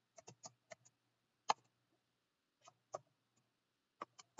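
Computer keyboard being typed on: about a dozen scattered single keystroke clicks at an uneven pace, the loudest about a second and a half in.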